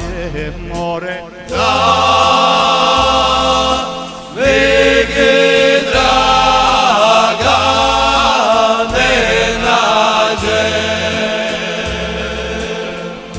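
Men's folk vocal group singing a traditional song in harmony. A single voice leads for about the first second and a half, then the whole group comes in loudly, drops off briefly about four seconds in, and carries on together.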